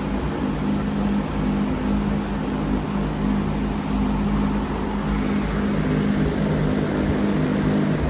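Sears Kenmore 771-81160 three-speed box fan, a Berns Air King design with a Westinghouse motor, running: a steady rush of air from the blades over a steady low motor hum.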